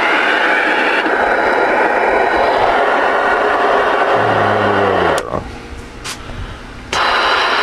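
Radio receiver static: a loud, steady hiss from the speaker, with a low falling tone about four seconds in. The hiss cuts out with a click about five seconds in and comes back about a second and a half later.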